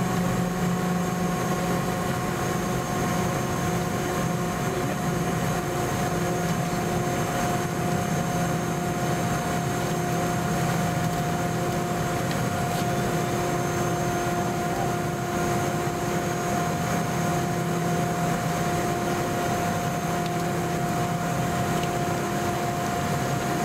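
Cabin noise inside a Boeing 717-200 taxiing: its rear-mounted Rolls-Royce BR715 turbofans run at low power, giving a steady hum with a constant mid-pitched whine over an even rush of air.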